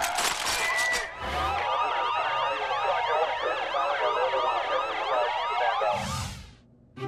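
Many police car sirens wailing at once, their rising and falling tones overlapping in a dense chorus, starting about a second in after a few sharp knocks. A brief rushing sound near the end, and then the sirens stop.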